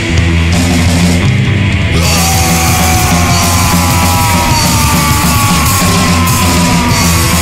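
Loud rock band playing with distorted guitar, bass and drums. About two seconds in the cymbals come in fully, and a long held high note slowly slides down in pitch through most of the rest.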